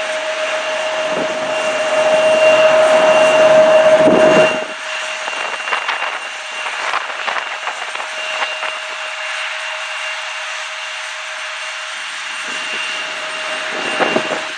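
Bombardier CRJ regional jet's CF34 turbofans whining steadily as it lands, loudest a few seconds in, then dropping away suddenly to a quieter, steady whine.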